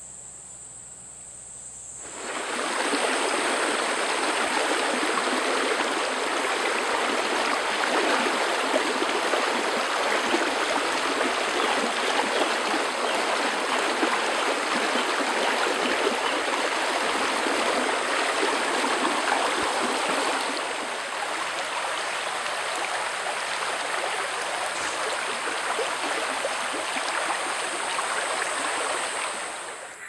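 Shallow rainforest creek flowing steadily over its bed, a continuous rush of water that starts about two seconds in and eases slightly about twenty seconds in.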